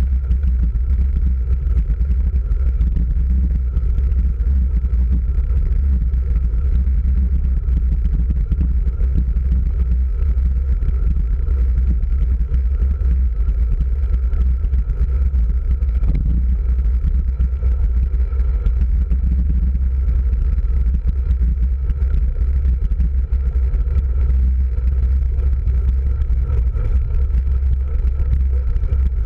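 Steady low rumble of wind buffeting a handlebar-mounted camera on a road bike rolling along a paved road, mixed with tyre and road vibration through the bars.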